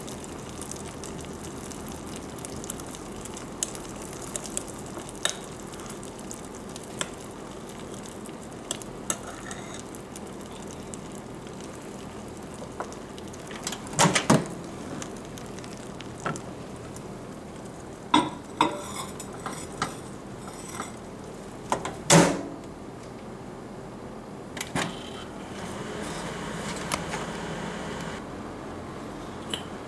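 Melted soft plastic being stirred in a glass measuring cup, with scattered taps of the utensil, then sharp knocks and clunks as the cup goes back into a MicroFridge microwave and the door shuts, the loudest about two-thirds of the way in. Near the end the microwave starts running with a steady hum to reheat the plastic.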